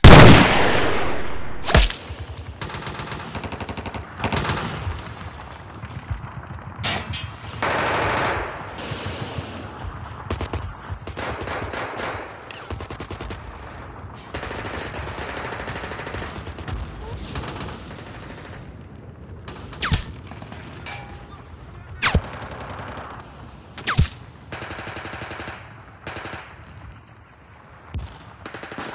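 Gunfire sound effects: one very loud rifle shot with a long echoing tail opens, followed by long bursts of rapid automatic fire and several sharp single shots.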